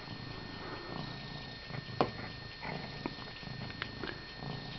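A 17-year-old domestic cat purring, a low rhythmic rumble, with a few short clicks over it, the sharpest about two seconds in.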